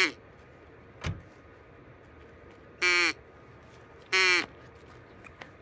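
Duck call blown to imitate a duck: two separate drawn-out quacks, each about half a second long, a little over a second apart. A single short knock comes about a second in.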